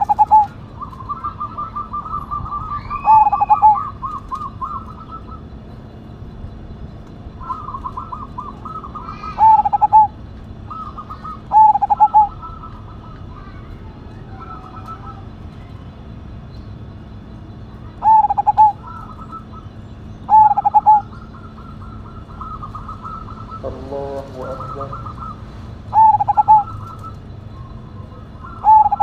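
Zebra dove (perkutut) singing: loud, short double coos every few seconds, with a softer, faster rattle of higher notes running between them.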